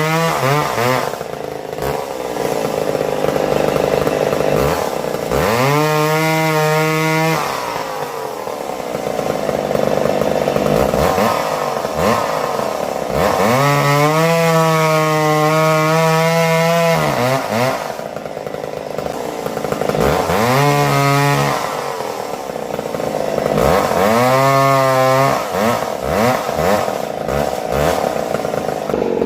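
Vintage McCulloch 7-10 Automatic two-stroke chainsaw bucking small wood. Its engine runs continuously, revving up to a high held pitch and dropping back about four times, with rougher, lower running between the revs.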